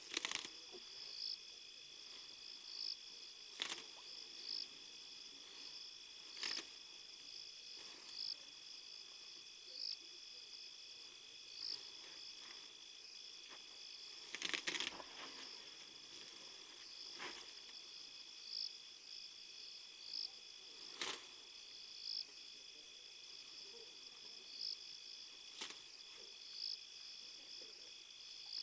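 Night insect chorus: crickets trilling steadily, with a high chirp repeating about once a second. Over it come about seven sharp cracks and rustles, the loudest cluster about halfway, from an African elephant feeding in the bushes, snapping and stripping vegetation.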